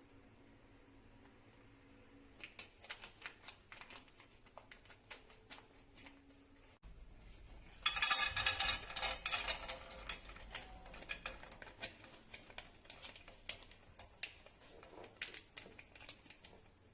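Popcorn kernels clicking and rattling in a pan: scattered clicks, then a dense loud rattle about eight seconds in, followed by irregular clicks.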